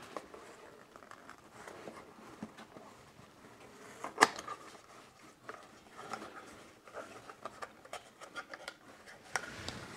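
Small parts and their packaging being handled: scattered rustling, small clicks and taps, with one sharp click about four seconds in.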